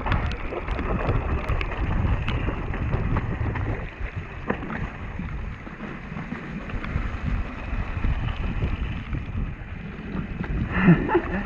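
Mountain bike running fast down a wet gravel trail: steady wind rush over the microphone with the rumble and clatter of tyres over stones and the bike rattling. A short louder sound stands out near the end.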